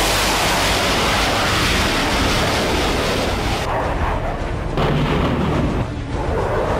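Fighter jet engines roaring at full power during a catapult launch off an aircraft carrier, a loud steady roar. It breaks off abruptly about three and a half seconds in, and duller jet rumble follows with further sudden changes.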